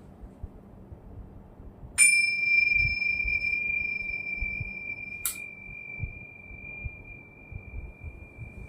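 A small metal sound-therapy instrument is struck once about two seconds in. It rings a single clear high tone that fades slowly, with a fainter, higher tone above it that stops at a light click about three seconds later.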